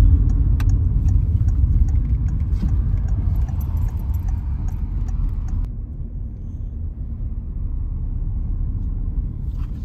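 Car interior noise while driving: a steady low rumble from the engine and tyres on the road. Light ticks and rattles and a higher hiss sound through the first half, then stop abruptly about halfway through while the rumble goes on.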